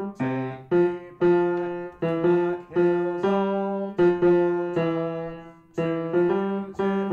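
Piano playing the tenor part as a slow line of struck notes, about two a second with a few held longer, each one ringing and fading before the next.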